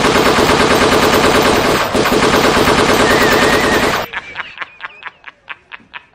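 Rapid machine-gun fire, a dense unbroken rattle that cuts off suddenly about four seconds in. After it comes a run of sharp taps, roughly three a second.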